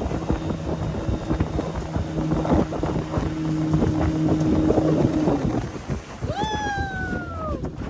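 Old gasoline outboard motor running steadily on a small aluminium boat, with wind buffeting the microphone and water noise; its steady note stops about five seconds in. Near the end comes a long falling voice-like call.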